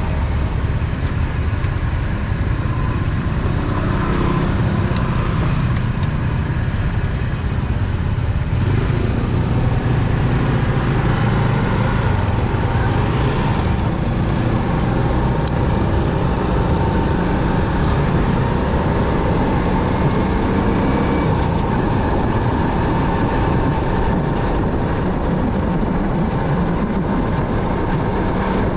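Motorcycle on the move: a steady low rumble of engine and road noise.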